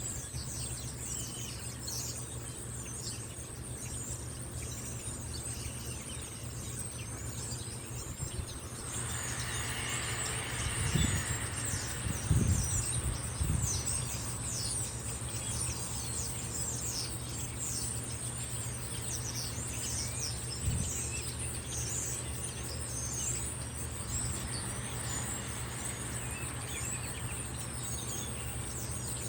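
Outdoor ambience: many birds chirping in quick, short falling notes over a steady high insect drone, with a low steady hum underneath. About ten seconds in, a brief swell of broader noise with a few low thumps rises and fades. No siren tone is audible.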